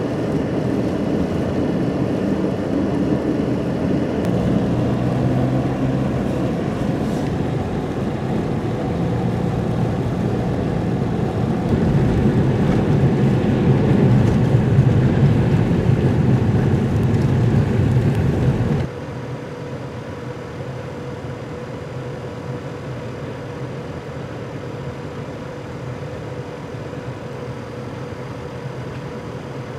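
Vehicle engines and traffic noise on a snowy road, growing louder for several seconds as a large truck approaches. At a sudden cut it gives way to a quieter, steady engine hum with a faint whine from a skid-steer loader pushing snow.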